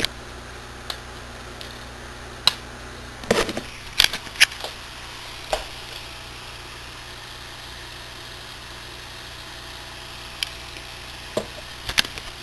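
Light clicks and knocks from handling a plastic dropper bottle of pH test solution and a glass test tube on a table, a handful in the first half and a couple more near the end, over a steady low hum.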